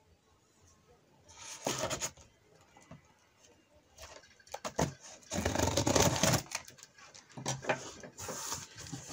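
Knife slitting packing tape on a cardboard box, then the tape being pulled off and the cardboard flaps opened: several short rasping, rustling scrapes, the longest and loudest about five to seven seconds in.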